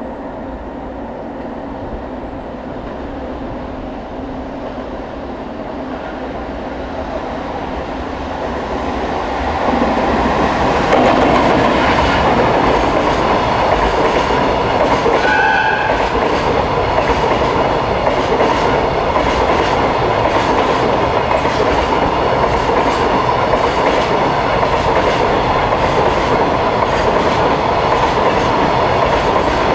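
Freight container train approaching and then passing close by. The rumble grows over the first ten seconds, then turns into loud, steady wheel-on-rail noise with a regular clacking as the container wagons roll past. A brief high tone sounds about halfway through.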